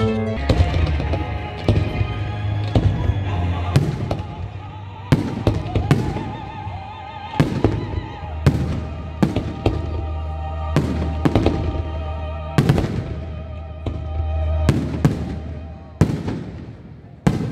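Aerial fireworks display, shells bursting in a quick irregular series of sharp bangs, about one every half second to a second.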